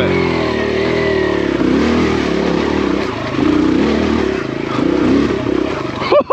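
Kawasaki KLX140RF dirt bike's single-cylinder four-stroke engine revving up and down under load as the bike climbs over wet rock and loose stones, its pitch rising and falling with the throttle.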